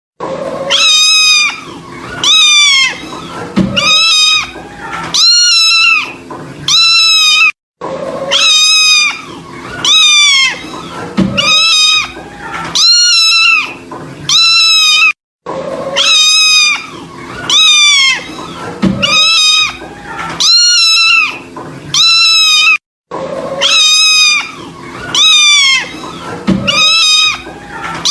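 Kitten mewing over and over, loud high-pitched cries that each rise and then fall in pitch, about five in a row. The same short run of cries repeats about every seven and a half seconds, with a brief dropout between repeats.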